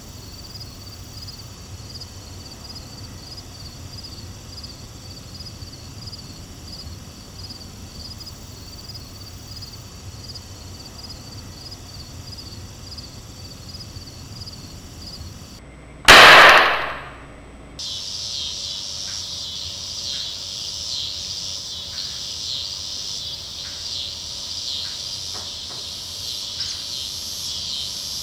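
Crickets chirping in a steady even rhythm, then about halfway a single very loud gunshot with a falling whine trailing off. After it a louder, denser chorus of insects carries on.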